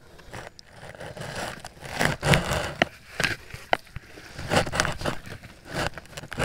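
Irregular scraping, knocking and clicking of stones and a wooden stick as rocks are poked and shifted at a crab hole.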